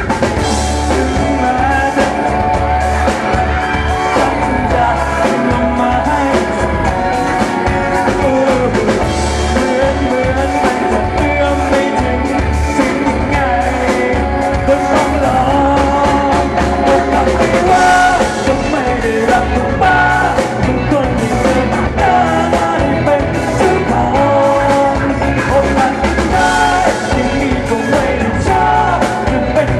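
Live rock band playing, with a male singer singing into a microphone over electric guitar and drums, loud and steady.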